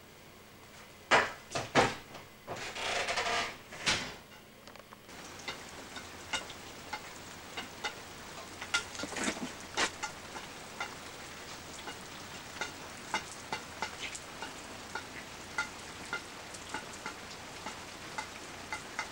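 A few loud knocks and a brief rush of noise in the first four seconds, then a steady hiss over many light taps, about two a second, of a white cane and shoes on wet concrete.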